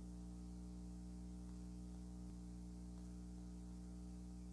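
Steady low electrical hum with a buzz of overtones and faint hiss, with one faint click a little over two seconds in.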